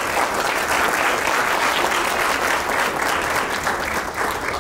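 A small group of people applauding, a steady dense patter of hand claps that eases slightly near the end.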